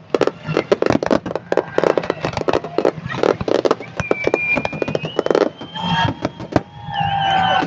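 Aerial fireworks shells bursting in quick succession, a dense run of bangs and crackles with heavier bursts every second or so. Long, steady, high whistling tones sound through the second half.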